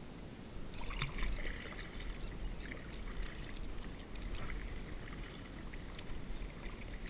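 Kayak paddle strokes splashing in the water, irregular splashes starting about a second in, over a low steady rumble.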